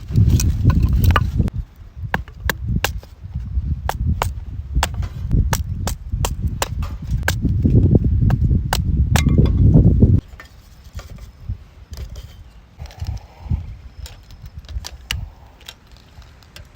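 Strong wind buffeting the microphone in gusts, with a rapid series of sharp clicks and knocks. The wind cuts off suddenly about ten seconds in, leaving a quieter stretch with a few scattered clicks.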